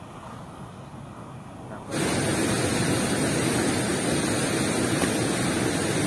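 Steady rushing of water, an even noisy roar that starts suddenly about two seconds in; before that only a quieter background.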